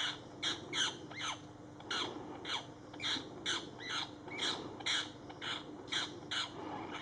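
A bird giving short, harsh squawking calls, about two a second, some sliding down in pitch.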